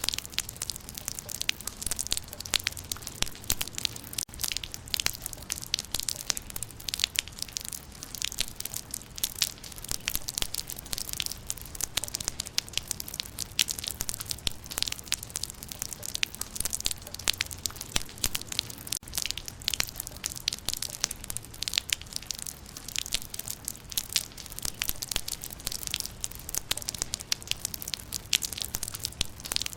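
Rain falling on leaves: a steady, dense patter of many close, crisp drop impacts that never lets up.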